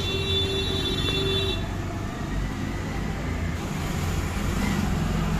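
Steady low rumble of background traffic, with a brief steady high-pitched tone for about the first second and a half.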